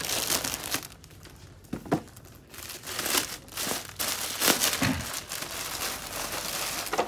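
Plastic wrapping and a cardboard packing box crinkling and rustling in irregular handfuls as a boxed suit is unpacked.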